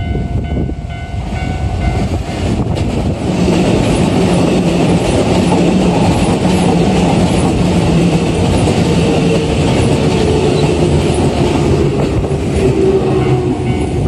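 Red Keikyu electric commuter train passing close over a level crossing: wheels clattering over the rail joints with a steady motor hum, loud from about three seconds in. A level-crossing warning bell rings at the start.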